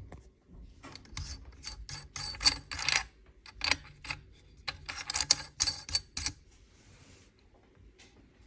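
Metallic ratcheting clicks from the toothed BoreLock collar of an ASE Utra muzzle brake as it is twisted by hand on a rifle barrel's threads. An irregular run of sharp clicks lasts about five seconds and stops a couple of seconds before the end.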